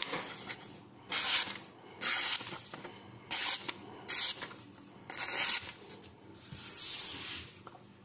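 Victorinox Santoku chef's knife slicing through a glossy printed paper page in about eight short hissing strokes, roughly one a second. This is a paper-cutting test of the freshly sharpened edge.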